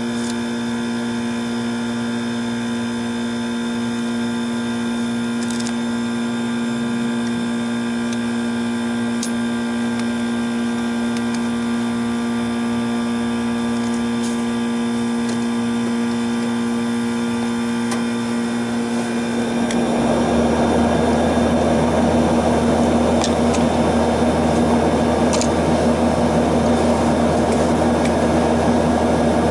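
Steady machine hum with a few small clicks. About two-thirds of the way in, a louder rushing machine noise with a deeper hum starts up and keeps running.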